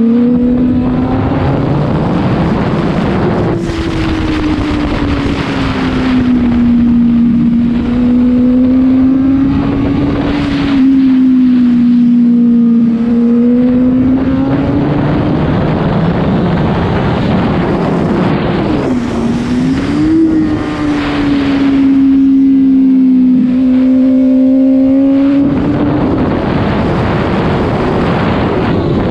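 Honda CBR1000RR inline-four sportbike with a Two Brothers aftermarket exhaust, heard from onboard at speed on a race track: the engine note rises and falls with the throttle through the corners and the straight, with a sharp dip and climb back up partway through. Wind rush over the bike runs under it.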